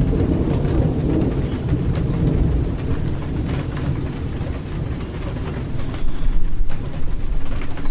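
Heavy rainstorm: steady rain with a deep rumble of thunder that eases through the middle and swells again about six seconds in.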